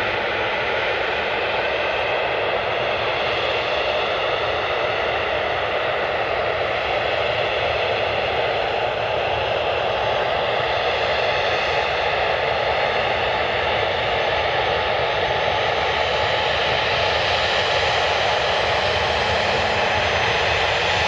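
The three Pratt & Whitney Canada PW307D turbofans of a Dassault Falcon 8X business jet running at low taxi power: a steady jet rumble with a thin high whine over it, growing slightly louder as the jet draws nearer.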